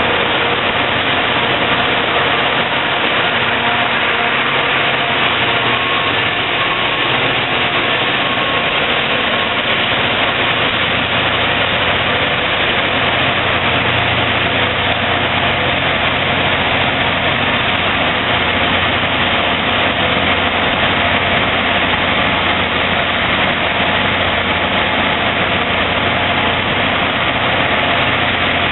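EMD F40PH diesel locomotive's engine running steadily: a loud, even drone with a few faint steady tones.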